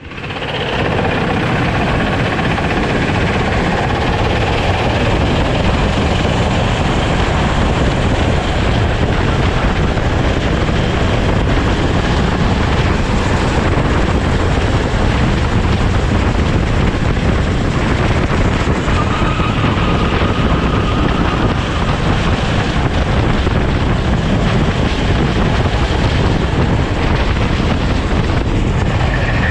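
Sodi rental kart's engine running, heard from a camera mounted on the kart, as a steady dense noise with no break or change in level.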